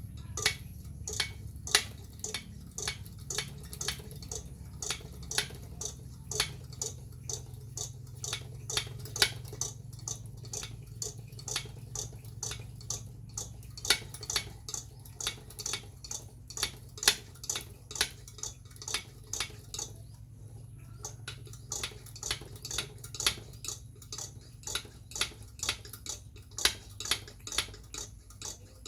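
Regular sharp clicks, about two a second, over a steady low hum.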